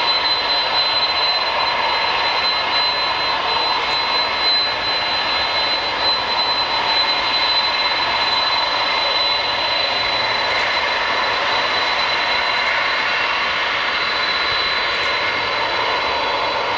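Boeing 747-400F freighter's four turbofan jet engines running steadily at low taxi power: a constant high whine over a broad rushing noise.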